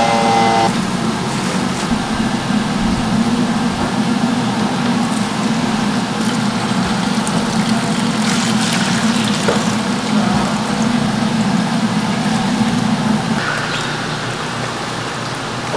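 Electric soybean grinder running with a steady hum while soaked soybeans and water are fed into its stainless steel hopper, with water pouring and splashing in. The hum drops away near the end.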